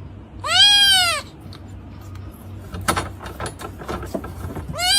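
A cat meowing loudly: one drawn-out meow that rises and falls in pitch, with a second meow starting near the end. Light clicks and rustling come in between.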